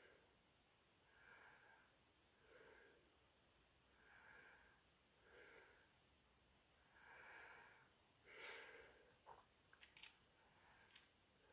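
Near silence: a person breathing softly and steadily close to the microphone, then a few faint sharp clicks near the end.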